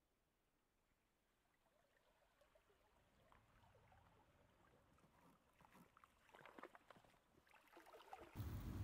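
Near silence, with faint scattered crackles in the second half and a steady low rumble that starts suddenly near the end.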